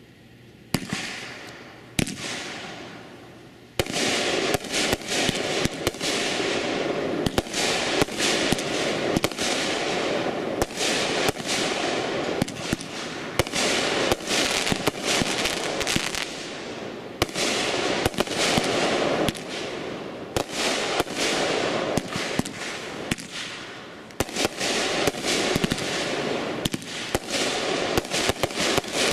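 A World Class Fireworks "Pigskin" 500-gram cake firing. Two single bangs come about a second apart. Then, from about four seconds in, a continuous rapid barrage of shots and aerial bursts follows, easing briefly a few times before picking up again.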